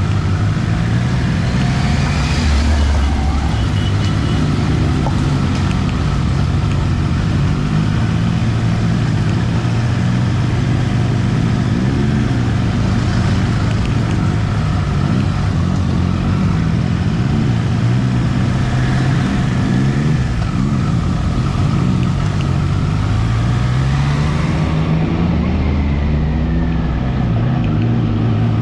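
Triumph Trident 660's inline three-cylinder engine running at low road speed, its revs rising and falling again and again with the throttle, with a longer climb in revs near the end.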